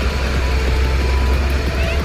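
Heavy vehicle engine running steadily with a strong low drone, under background music.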